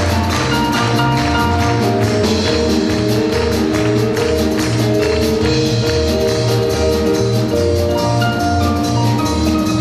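Upbeat instrumental music with a steady bass beat and a bright melody, with percussion ticking throughout.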